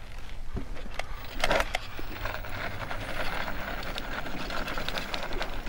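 Scooter ridden along a dirt trail: irregular clicks and rattles over a low rumble as it rolls over the rough ground.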